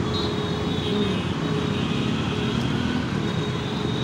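Steady road-traffic noise heard from a moving motorcycle: the bike's own engine and the surrounding motorbikes and cars blend into a continuous even rumble.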